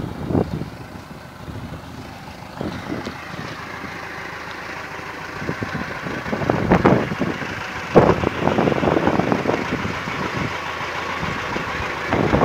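Tractor engine running as the tractor drives across rough ground toward the listener, growing louder from about halfway through, with a few louder bumps, the strongest about seven and eight seconds in.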